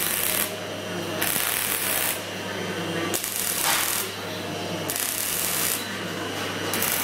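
Robot MIG welding torch arc crackling and hissing along a sheet-metal seam. The hiss swells and eases about every two seconds over a steady low hum.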